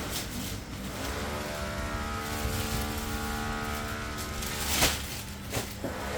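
Possible carbon MTB wheel's hub buzzing steadily as the freehub ratchet clicks rapidly while the wheel spins, with a sharp knock about five seconds in.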